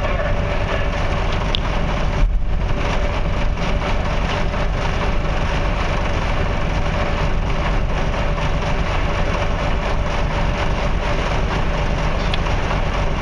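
Diesel engine of a large container-handler forklift running steadily, with a steady mid-pitched whine over it. A short low thump comes about two seconds in.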